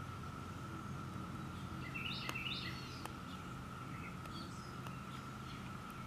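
Chorus of periodical cicadas, a steady even drone, with a few bird chirps about two seconds in over a low background rumble.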